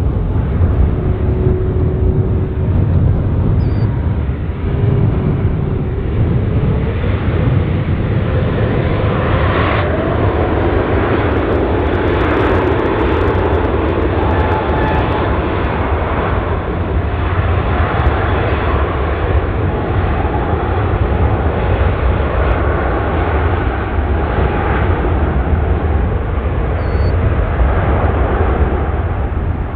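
Jet airliner arriving to land, its engine noise loud and continuous. The sound grows fuller and brighter about a third of the way in as the aircraft passes closest, then eases back.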